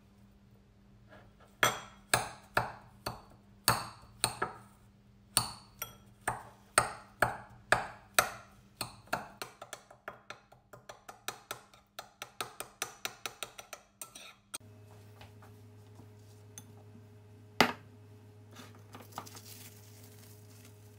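Metal spoon clinking against a ceramic bowl while stirring garlic into butter: a run of sharp, ringing clicks, about two a second and then quicker, for some thirteen seconds. After that, one sharp knock and a brief crinkle of cling film being peeled off a glass bowl.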